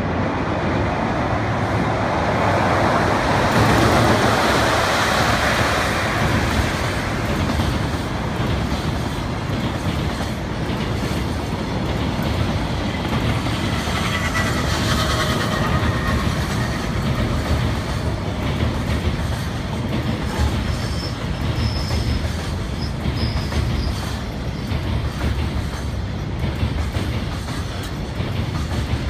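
Long container freight train rolling past over a steel truss railway bridge: a steady rumble and clatter of wagon wheels on the rails, loudest a few seconds in and running on as the wagons keep coming.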